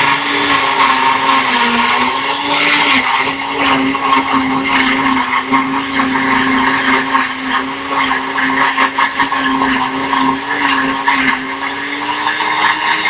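Countertop blender motor running at speed, blending a smoothie of frozen fruit; its pitch dips a little twice and rises slightly near the end as the load on the blades changes.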